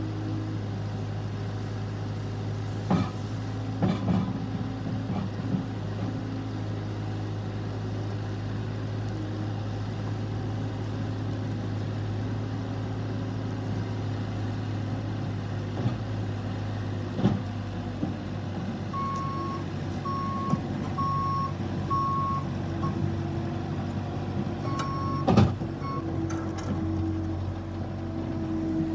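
Case TR320 skid steer loader's diesel engine running steadily, with a few sharp metallic clunks. About two-thirds of the way in its reverse alarm beeps steadily for several seconds, the sign that the machine is backing up; the loudest clunk comes near the end of the beeping.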